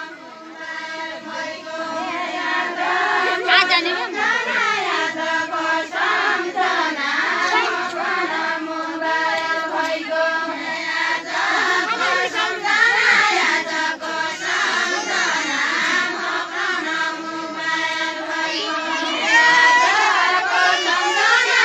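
A group of women singing a Deuda folk song together, the melody held in long drawn-out lines that bend up and down, growing a little louder near the end.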